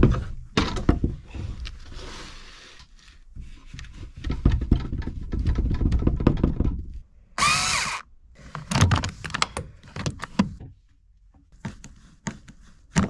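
Knocks, thumps and rubbing as gloved hands work a flexible sink waste hose onto a brass outlet, with one brief high squeak about seven seconds in.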